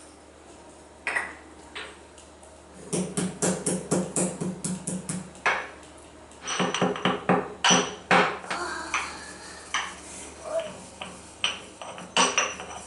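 Kitchen utensils clinking and knocking: a single tap about a second in, then a fast, even run of about five taps a second for some two seconds, another quick cluster, and scattered clinks near the end.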